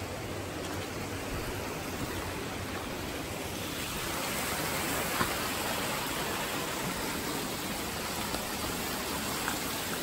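Steady rush of a small mountain stream cascading over rocks, a little louder about four seconds in.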